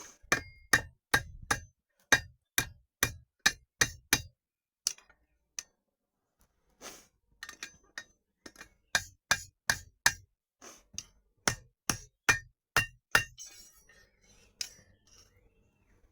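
Blacksmith's hammer striking metal on an anvil in steady, evenly spaced blows, about two or three a second, each with a short ringing clang. The blows stop for about two seconds a little over four seconds in, start again in a second run, and thin out to a few scattered taps near the end.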